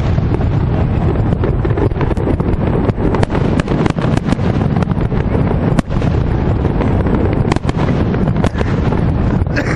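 Fireworks display going off: a rapid, irregular run of bangs and crackles over a continuous low rumble of distant explosions.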